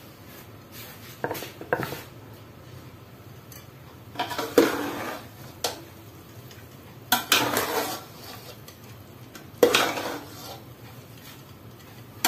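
A steel spoon scraping and clanking against a metal pot as it turns and mixes cooked rice. There are several separate strokes a couple of seconds apart.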